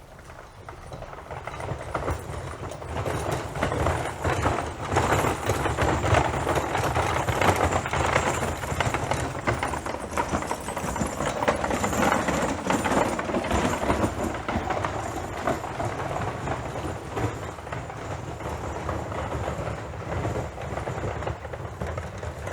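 Horse hooves clattering in a fast, dense rhythm, building up over the first several seconds and then slowly easing off.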